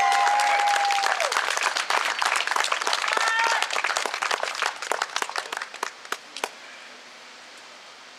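Crowd applauding, with voices whooping near the start and again about three seconds in. The clapping thins out and stops about six and a half seconds in.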